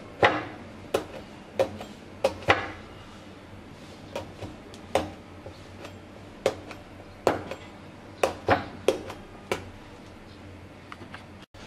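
Metal fork jabbed again and again into a whole raw eggplant, giving about a dozen short, sharp clicks at uneven intervals as the tines pierce the skin.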